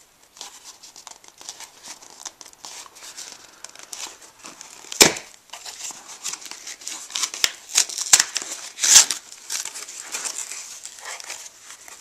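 Cardboard mailing box being pried and torn open by hand: rustling and scraping of cardboard, broken by sharp snaps and tearing as the flaps come apart, the loudest about five seconds in and a cluster around eight to nine seconds in.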